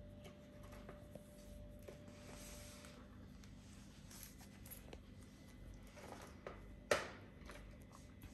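Young kittens playing: faint scratching and light tapping of small paws and claws, with one sharp knock a little under seven seconds in.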